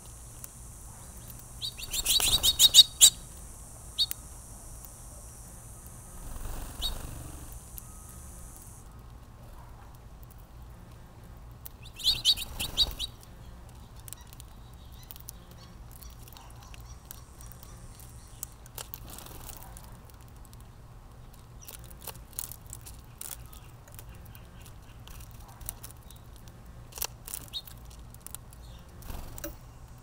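Small songbirds chirping at a seed feeder in two short rapid bursts, about two seconds in and again around twelve seconds, with scattered single chirps and clicks between. A high steady insect buzz runs underneath and stops about nine seconds in.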